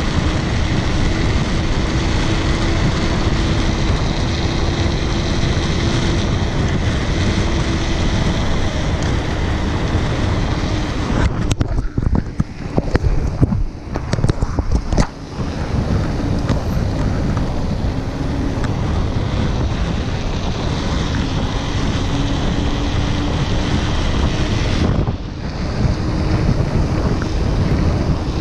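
Wind buffeting the microphone of a bicycle descending at speed, with a faint steady hum underneath. The rush breaks up unevenly for a few seconds in the middle and dips briefly near the end.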